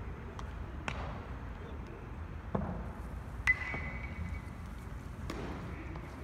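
Baseball infield practice: four sharp knocks of balls being hit and caught in leather gloves. The loudest, about three and a half seconds in, is a metallic ping with a short ringing tone, a metal bat striking the ball.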